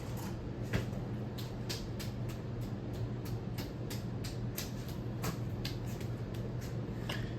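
Casablanca Spirit of Saturn ceiling fan running in reverse on its first speed: a steady motor hum with scattered sharp ticks and clicks at irregular intervals.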